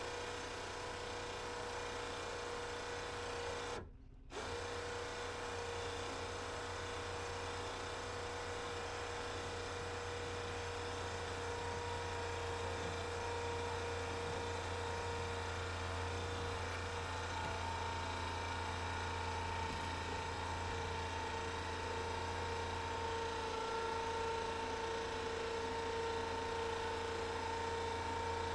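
Small electric winch motor running steadily with a whine, winding in the line that pulls a loaded fishing kayak up a wooden ramp into a pickup bed. The whine grows slightly louder as the pull goes on, and the sound cuts out briefly about four seconds in.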